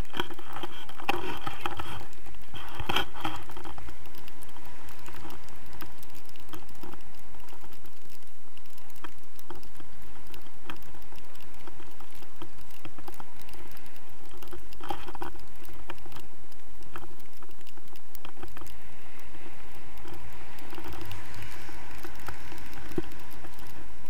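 Wind rushing over an action camera's microphone on a paraglider in flight, a steady buffeting with constant crackling and rustling.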